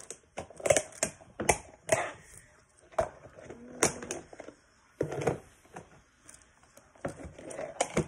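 A plastic 3x3 puzzle cube having its layers turned quickly by hand during a solve: irregular clacks and rattles that come in quick bunches, with short pauses between.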